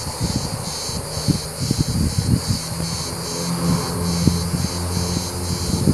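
Insects chirping in an even pulsing rhythm, about two to three pulses a second, over low rumbles and bumps from the phone being handled.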